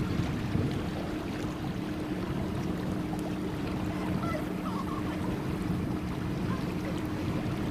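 Electric boat motor humming steadily under way, over a continuous low wash of wind and water noise.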